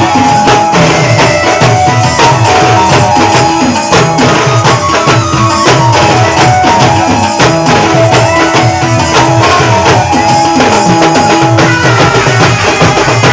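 Indian folk-style band music: fast, dense drumming with repeated deep strokes that drop in pitch, under a melody of long held notes.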